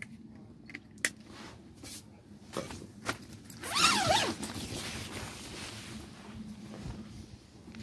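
Camera-handling and clothing rustle with scattered knocks and clicks as a person moves out of a tent. About four seconds in comes a short, loud, wavering pitched cry over a hiss.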